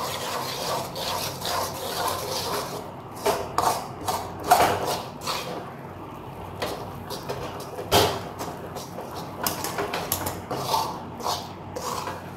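A spoon stirring and scraping thick Mysore pak batter of gram flour, sugar and ghee around an aluminium kadai, in irregular strokes with occasional knocks against the pan, one louder about eight seconds in. The batter is at the stage of absorbing the last of the ghee.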